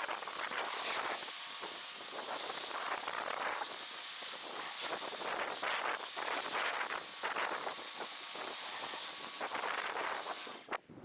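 Pressure washer spraying snow foam through a foam cannon: a steady, loud hiss that cuts off sharply about half a second before the end.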